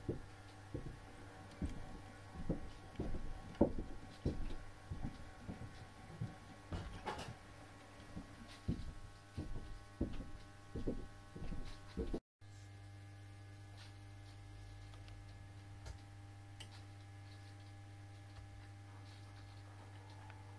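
Gauge O model locomotive tender being backed slowly onto a van: irregular small metallic clicks and knocks of wheels, couplings and buffers over a steady low electrical hum. After about twelve seconds the clicking stops and only the hum remains, with an odd faint click.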